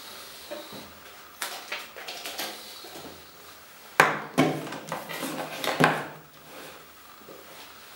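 Metal probe housing for an SBT-10 pancake Geiger tube, with its cable, being handled and set down on a table: scattered light knocks, then a sharp knock about four seconds in followed by about two seconds of smaller knocks and rattles.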